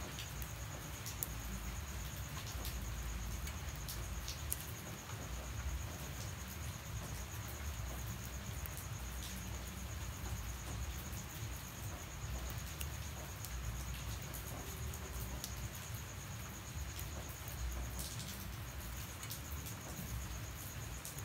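Light rain falling steadily, with an insect trilling at a constant high pitch throughout, breaking off briefly near the end, and scattered sharp ticks of drops.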